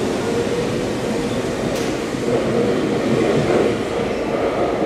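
Electric subway train, a Toei Shinjuku Line set, pulling out of an underground station: its motors whine at a steady pitch over the rumble and rattle of the wheels as the cars pass and move off.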